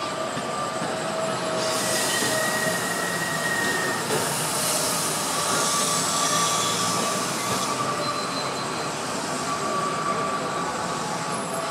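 Toyohashi Railroad streetcar rounding a tight curve in the street track, its wheels squealing in thin drawn-out tones over the hiss of steel wheels on rail. The hiss is loudest from about two to eight seconds in, as the car passes close by.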